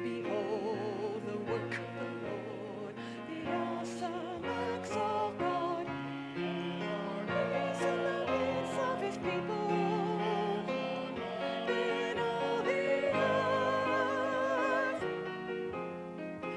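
Church choir singing long held notes with vibrato over instrumental accompaniment.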